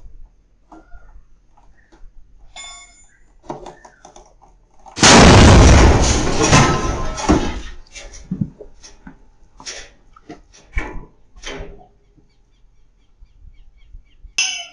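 A truck tire exploding about five seconds in: a sudden, very loud blast that trails off over about two and a half seconds. Scattered knocks follow over the next few seconds.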